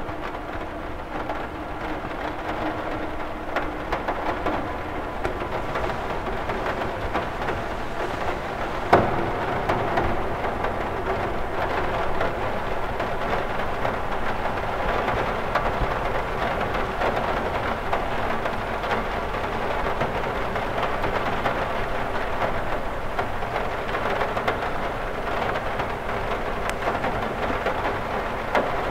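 Rain falling on a window: a dense, steady spatter of drops on the glass, with one louder hit about nine seconds in.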